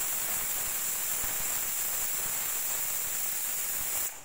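Stovetop pressure cooker letting off steam through its vent: a steady, loud hiss as the pressure is released before the lid is opened, cutting off suddenly near the end.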